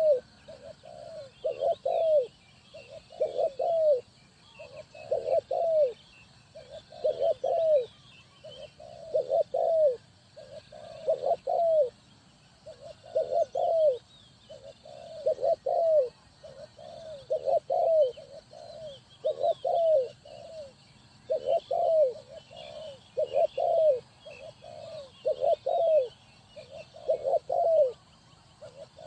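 Spotted dove cooing: a short phrase of a few low coos repeated about every two seconds, with faint chirping of small birds higher up.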